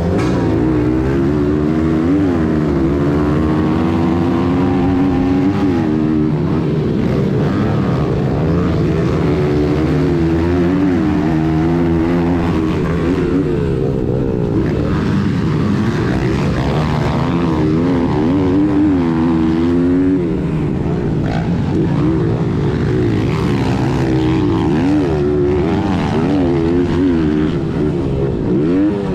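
Small single-cylinder four-stroke pit bike engine at full race throttle, its pitch climbing and dropping again and again as it revs out and shifts up through the gears, with other pit bikes running close by.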